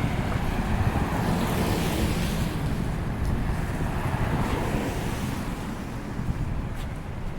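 Street traffic noise, with cars passing and swelling then fading about two seconds in and again around four to five seconds in, under the rumble of wind on the microphone.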